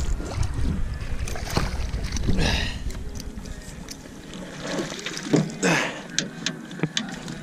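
Water splashing and sloshing as a threadfin salmon is scooped into a landing net beside an aluminium boat, with scattered sharp knocks. The splashing is heaviest in the first few seconds and swells again about five seconds in.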